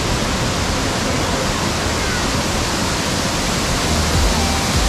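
Waterfall pouring steadily, a loud, even rush of falling water.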